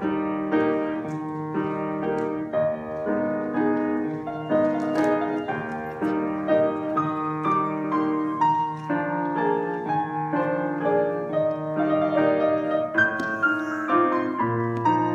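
A grand piano being played, a classical piece with a steady flow of notes.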